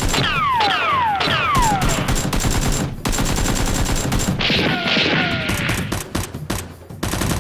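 Rapid volleys of gunfire sound effects, with three falling whistles in the first two seconds and a hissing burst about halfway through.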